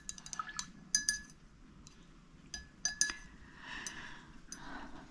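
A paintbrush clinking against a glass water jar, a handful of irregular light taps that each ring briefly at the same pitch, as the brush is rinsed between colours.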